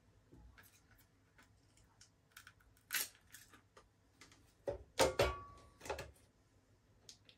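Small repair tools and phone parts clicking and clattering on a workbench. There are scattered light clicks, a sharper knock about three seconds in, and a louder cluster of knocks about five seconds in, one of them with a brief ringing tone.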